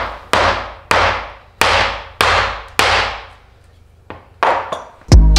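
Claw hammer striking nails into a wooden board: six sharp blows about 0.6 s apart, each ringing out, then a pause and two lighter taps. Near the end, a loud low thud as music comes in.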